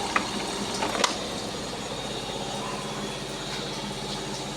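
Samsung washing machine drum spinning with an unbalanced load: a steady mechanical hum with two sharp knocks in the first second or so, the sign of the load thrown off balance in the drum.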